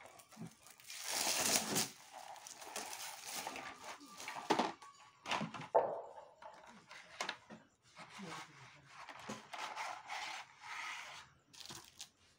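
Paper and cardboard packaging of a sparkler box being handled and opened: irregular crinkling and rustling, with a few short sharp clicks.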